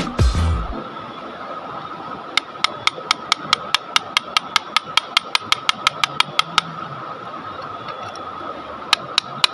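A hammer tapping quickly on rock, about five light strikes a second for some four seconds, then two more strikes near the end, over a steady high tone.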